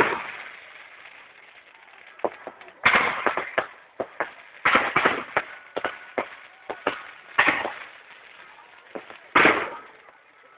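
Aerial fireworks bursting overhead: a loud bang at the start, then clusters of sharp bangs and crackles every second or two, with another loud bang about nine and a half seconds in.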